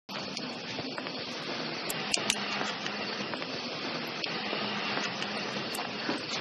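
A steady hiss with scattered faint clicks and crackles.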